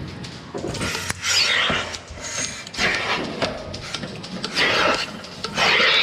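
DeLaval milking unit's teat cups hissing in short bursts, about four of them, as air rushes into the vacuum while the cups are put onto a cow's teats, over the steady hum of the milking system.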